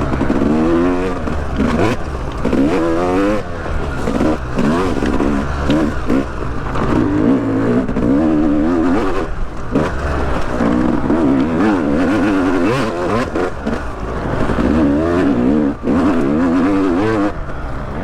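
Yamaha YZ250X two-stroke dirt bike engine being ridden hard. It revs up and drops back again and again with the throttle, its pitch rising and falling in quick waves. It is heard through a microphone inside the rider's helmet.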